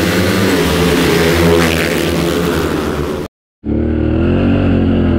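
2023 Can-Am XMR 1000R ATV's V-twin engine running under throttle, its pitch rising and falling, with a steady hiss over it. A little over three seconds in the sound cuts off abruptly to a moment of silence, then the engine comes back sounding duller.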